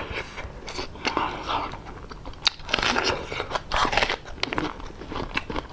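A person eating close to the microphone: biting, crunching and chewing food, with irregular sharp clicks and wet smacks.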